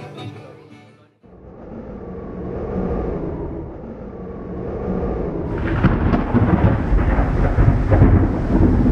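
Low rumbling thunder that swells and ebbs, growing louder and rougher about halfway through. Acoustic guitar music fades out in the first second.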